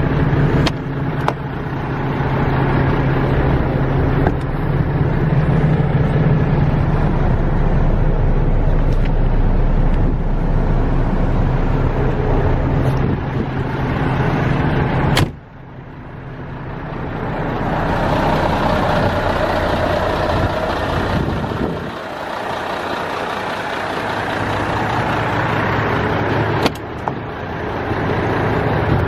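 MAN TGS 24.440's 12.4-litre six-cylinder diesel idling steadily. About halfway through a sharp click comes, the sound drops away suddenly and builds back up, and another click follows near the end.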